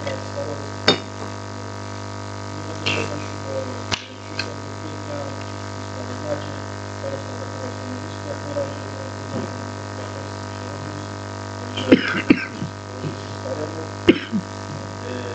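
Steady electrical mains hum on the sound system, with faint indistinct voices in the room and a few sharp clicks or knocks, the loudest cluster near the end.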